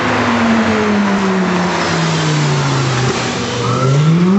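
Supercar engine under hard acceleration: its note slides steadily down in pitch for about three seconds, breaks off briefly, then climbs sharply again near the end, like an upshift followed by the revs rising.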